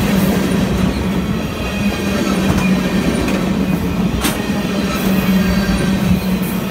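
Freight train of flatcars rolling past: a steady rumble from the wheels on the rails, with a couple of sharp clacks.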